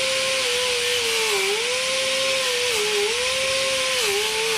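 Small high-speed rotary grinder buffing paint off a body panel down to bare metal to make a ground point. It runs with a steady high whine and hiss, and the pitch sags three times as it is pressed into the metal.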